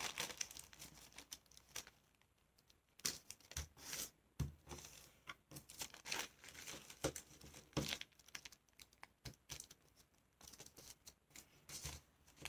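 Tissue paper being folded and creased by hand: faint, scattered crinkles and rustles coming in short bursts with brief pauses between them.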